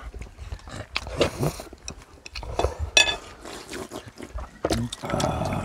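Eating sounds: people slurping ramyun noodles and broth from bowls, with chopsticks and spoons knocking against the dishes. About three seconds in there is one short, ringing clink of metal.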